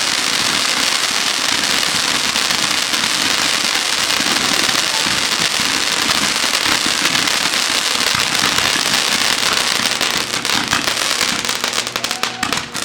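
Consumer fireworks giving off a dense, continuous crackle. Near the end it thins out into separate sharp pops.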